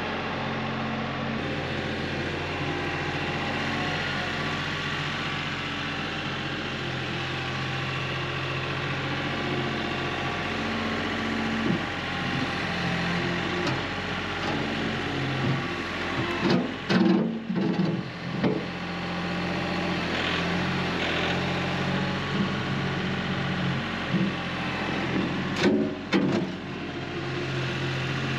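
Compact diesel tractor engine running steadily, with a cluster of heavy knocks past the middle and a couple more near the end.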